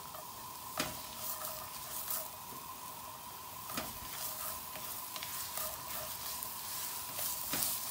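Chopped red onion sizzling in hot olive oil in a nonstick frying pan, stirred with a silicone spatula that scrapes and taps against the pan now and then. A faint steady whine runs underneath.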